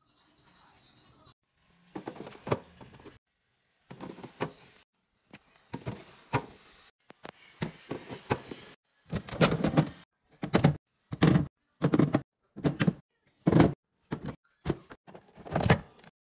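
Clear plastic fridge storage bins being handled, set down and slid onto refrigerator shelves and into drawers: a run of short plastic knocks and clunks, louder and coming in quick succession over the last six seconds or so.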